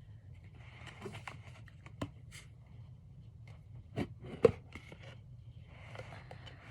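Hands handling small objects close up: scattered clicks and taps with soft rustling, and a sharp click about four and a half seconds in.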